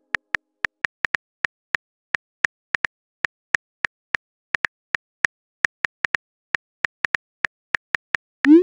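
Simulated phone-keyboard typing sounds from a texting-story app: one short click per letter, about three to four a second. Near the end comes a short rising swoosh as the message is sent.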